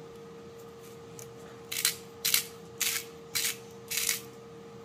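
Hand-twisted salt grinder grinding salt into a bowl: five short crunchy grinds about half a second apart, starting near the middle.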